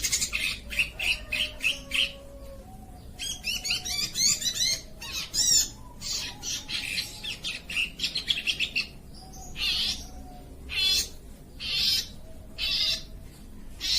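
Oriental magpie-robin (kacer) singing: short bursts of fast, varied high warbling phrases with brief pauses between them.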